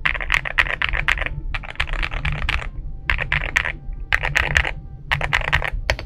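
Typing on an Akko MU01 65% mechanical keyboard with a wooden case and thick dye-sub PBT keycaps. The keystrokes come in quick bursts with short pauses between them.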